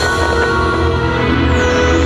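Loud fireworks-show soundtrack music with held, sustained chords.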